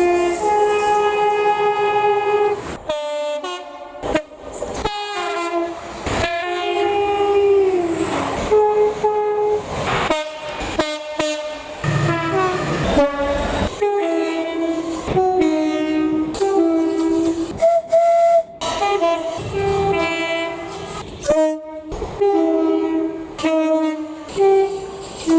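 Train horn sounded again and again in a long run of short and held blasts, switching back and forth between a lower and a higher note.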